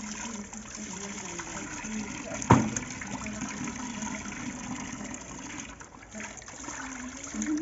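Water sloshing and splashing in a plastic tub as raw chicken pieces are lifted, rubbed and washed by hand, with a single sharp knock about two and a half seconds in.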